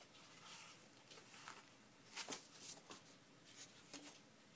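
Sheets of paper rustling and sliding as they are handled and sorted, with a few brief soft swishes.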